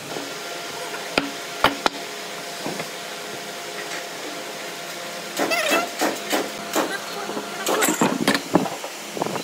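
A few sharp knocks of wooden boards and a steel square set down on a workbench, then a pen scratching marking lines along pine boards in short strokes.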